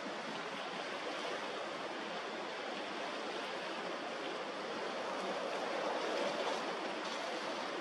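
Steady rushing and washing of water along the hull of a Murasame-class destroyer under way, swelling slightly about five to six seconds in.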